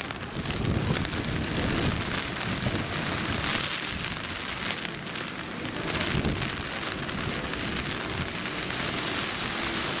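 Typhoon rain falling steadily: an even hiss of many small drops, with a low rumble underneath that swells near the start and again about six seconds in.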